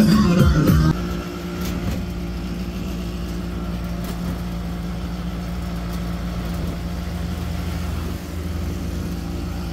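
Vehicle engine running steadily with a constant low hum while driving, heard from inside the cabin. A song cuts off about a second in.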